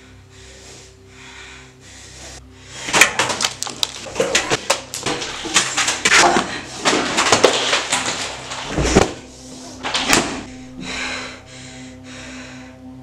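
Film soundtrack: quiet music with a soft, even pulse, then about three seconds in a loud, dense stretch of sharp clicks, knocks and hissing with one heavy low thud near its end. It then falls back to the quiet music.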